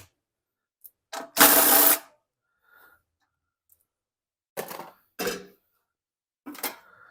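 Small-engine repair work: a short burst of a small power tool's motor about a second and a half in, then a few short knocks and clanks of metal parts being handled.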